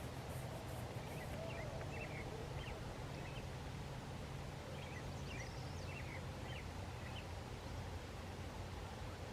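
A small bird chirping, twice in short runs of quick high notes, over a steady low background rumble.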